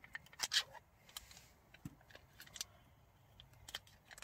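Light rustling and scattered clicks of a beef stock cube being unwrapped and crumbled by hand into a stew pot, with one short rustle about half a second in.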